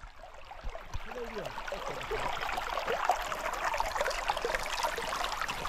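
Small river running and gurgling, a steady rush of water dotted with quick bubbling sounds, swelling over the first two seconds and then holding steady.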